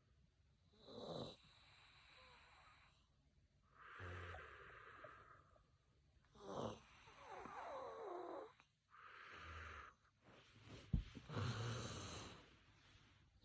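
Soft snoring: about five slow, noisy breaths spaced two to three seconds apart, one carrying a wavering, whistly pitched note.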